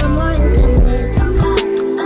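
Music with a steady beat: rapid ticking percussion over deep bass, with held melodic notes.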